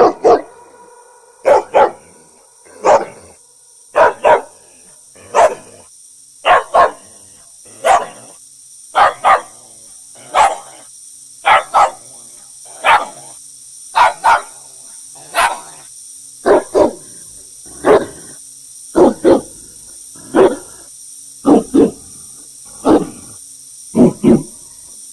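A dog barking over and over, mostly in quick pairs of barks, a pair or single bark every second or two, with a faint steady high hiss behind.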